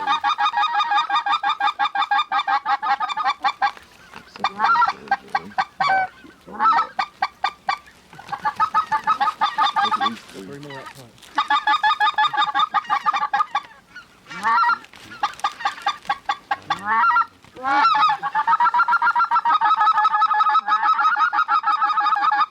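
Goose calling: fast, steady runs of honks and clucks, in several long strings broken by short pauses, with the longest unbroken run in the last few seconds.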